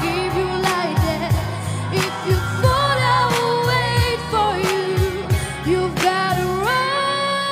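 A girl singing a pop song live into a handheld microphone over a backing track with drums and bass. Near the end she slides up into a long held high note with vibrato.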